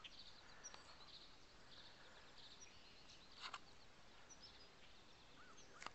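Near silence, with faint scattered bird chirps and a soft click about three and a half seconds in.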